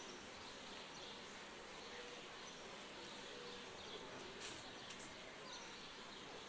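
Quiet open-air background hiss with a few faint light clicks in the second half, as the metal altar vessels are handled.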